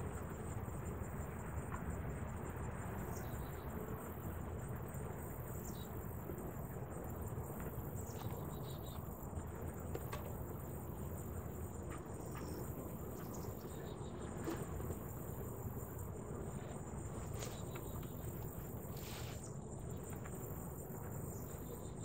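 Steady chorus of crickets in the grass, a continuous high trill, over a faint low rushing background, with a few faint clicks scattered through.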